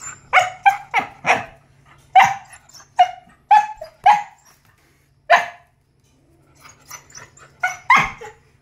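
Dog barking: a run of about a dozen short, sharp barks, with a pause of a second or so in the middle and a few more near the end.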